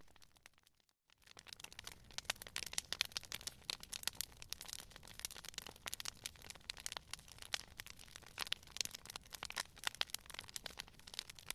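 Campfire crackling: a dense run of sharp pops and snaps from burning wood. The sound drops out briefly about a second in, then the crackling resumes.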